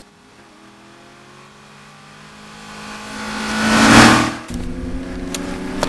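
Sports car engines running: one draws closer, swelling to a loud pass about four seconds in, then cuts off sharply while another engine keeps running steadily.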